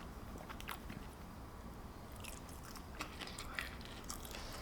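Close-miked chewing and mouth sounds of someone eating, with scattered small wet clicks.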